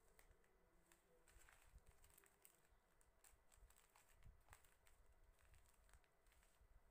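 Faint rustling and crinkling of small plastic packets of embroidery beads and sequins as they are picked up and laid down, with scattered light clicks.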